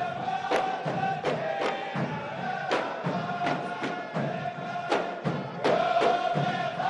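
Traditional Saudi ardah: a large group of men chanting in unison over drum beats, with crowd noise around them.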